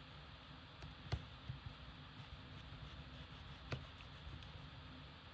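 Quiet room tone with a few faint, sharp clicks of small metal repair tools against a phone's parts, the clearest about a second in and again near the 4-second mark.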